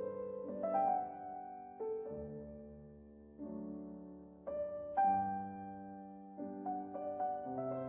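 Slow background piano music: soft chords and single notes struck every second or two and left to ring.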